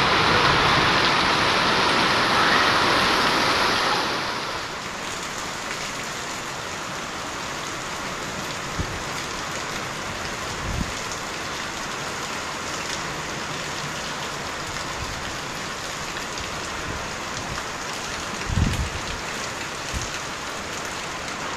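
Heavy rain with hail pouring down in a steady hiss. The hiss drops noticeably about four and a half seconds in, and a few dull low thumps sound later on.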